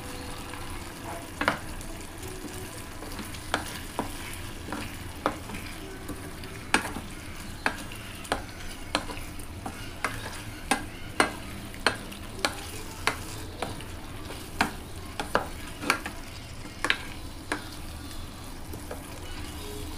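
Stir-frying eggplant and chili paste in a stainless steel wok: a steady sizzle of frying, with sharp, irregular knocks as a wooden spatula strikes and scrapes the pan, roughly one a second and coming faster past the middle.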